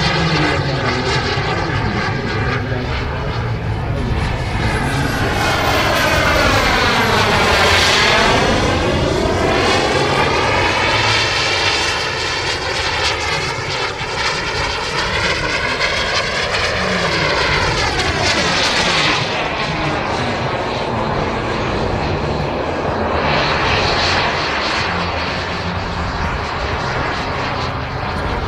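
Jet-fuelled turbine engine of a large radio-controlled F-16 model jet running in flight. Its whine and rushing noise swell and fade as it makes passes, the tone sweeping down and back up as it goes by, loudest about eight seconds in and again a little before twenty seconds.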